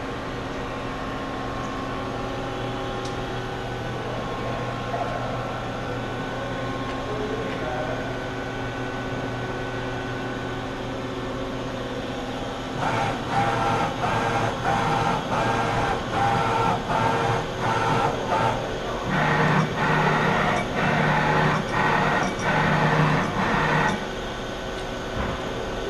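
A Mori Seiki SL-00 NC lathe running with a steady machine hum. About halfway in, a series of short, pulsing whines starts, roughly two a second, and a deeper pulsing tone joins. They stop shortly before the end, leaving the steady hum.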